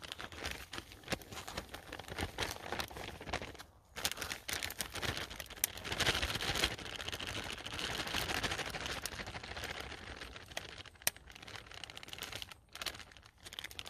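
Plastic zip-lock freezer bag crinkling and rustling, with many small crackles, as dry bannock mix is shaken and poured out of it into a wooden bowl.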